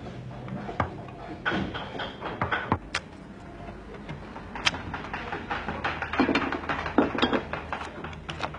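Wood-carving tools at work: irregular sharp knocks of mallet on chisel and chisel cutting into wood, roughly one or two a second.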